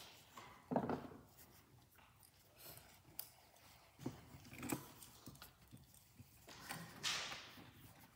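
Light handling sounds of a wooden picture frame and its small metal hanging fittings: a few scattered knocks and clicks, the loudest about a second in and just before five seconds, and a brief rustle about seven seconds in.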